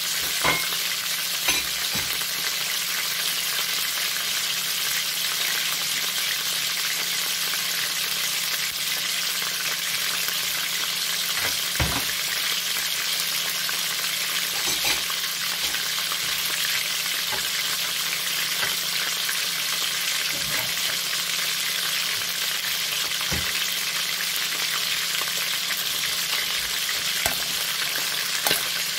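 Chicken pieces frying in olive oil in an aluminium wok: a steady high sizzle, with a few sharp pops now and then.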